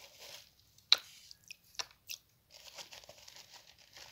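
Salt being handled by the handful. There is one sharp crunch about a second in, three smaller crunches over the next second, then a soft continuous crinkling.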